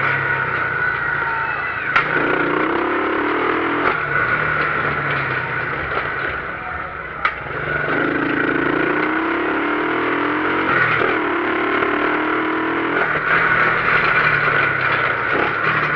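Motorcycle engine running on the move, rising in pitch in three sweeps as it accelerates, each dropping back before the next, with a few short clicks.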